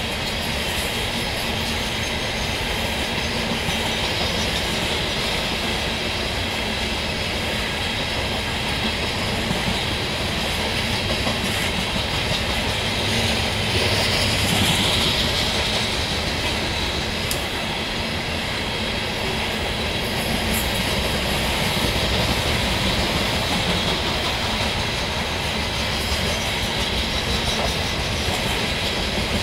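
Coal hopper cars of a CSX freight train rolling past steadily, their steel wheels rumbling and clattering on the rails.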